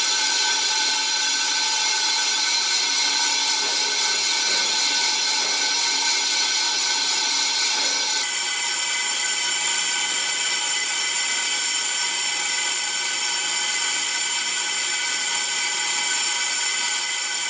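A Hwacheon VT-650 MC vertical CNC turning center cutting a cast iron drum: a steady, high-pitched machining hiss and whine from the tool on the spinning workpiece. The sound changes in tone about eight seconds in.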